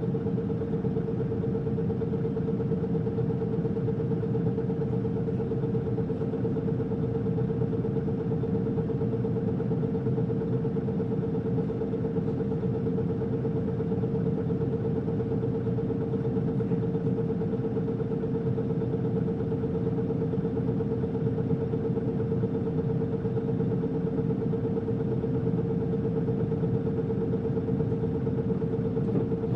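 Isuzu Erga city bus heard from inside the cabin, its diesel engine running at a steady idle with a constant low rumble and a steady hum, with no revving or change in speed.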